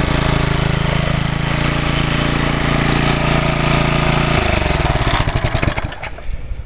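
Briggs & Stratton Sprint II 3.75 hp single-cylinder four-stroke mower engine running steadily at speed. About four seconds in it is shut off: the pitch falls and the firing slows into separate chuffs until the engine stops about two seconds later.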